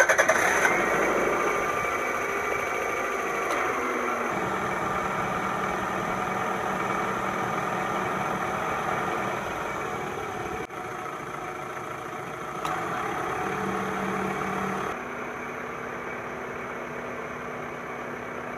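A Toyota Camry four-cylinder engine running just after starting, its revs and loudness settling over the first couple of seconds into a steady idle. The drive belts are turning on a newly fitted harmonic balancer (crankshaft pulley).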